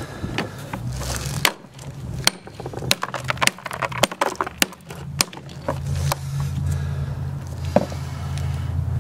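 Hammer striking chunks of hard-rock copper ore in a plastic tub: a quick run of sharp cracks and clattering rock through the first five seconds or so. After that the cracks stop, leaving a low steady hum.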